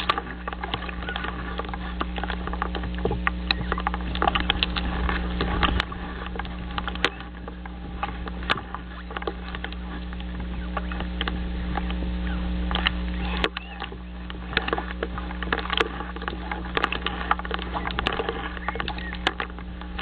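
Dry reeds and sticks of a common loon's nest crackling and rustling close to the microphone as the loon shifts and settles on it, in a dense run of sharp clicks. A steady low hum runs underneath.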